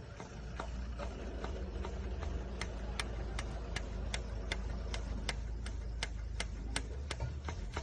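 Regular sharp clicks over a steady low hum, a few at first, then quickening to about three a second from about two and a half seconds in, as air is bled out of a diesel generator set's fuel system.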